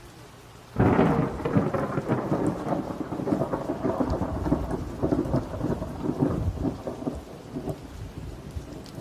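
A thunderclap breaks suddenly about a second in and rumbles on for several seconds, slowly fading, over steady rain.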